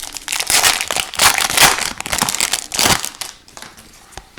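Foil wrapper of a hockey card pack crinkling as it is handled and crumpled, dense for about three seconds, then a few light ticks as cards are handled.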